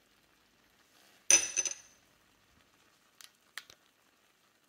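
A utensil striking a glass cooking pot: one loud ringing clink about a second in, then a few light clicks near the end.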